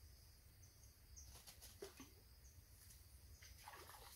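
Near silence: faint rural outdoor ambience, with an insect calling in short, regular high pulses about twice a second, plus a few faint chirps and clicks.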